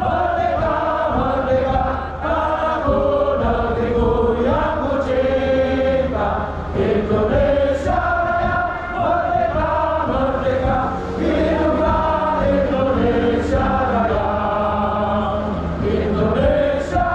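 A large crowd singing together in unison, a slow tune of long held notes that move from pitch to pitch about once a second.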